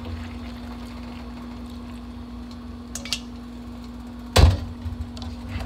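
Kitchen handling sounds at a stovetop wok: a steady low hum, a light click about three seconds in, and one sharp knock about four and a half seconds in.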